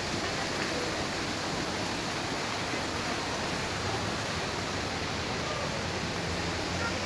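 A steady, even rushing noise that holds at one level throughout, with no distinct events.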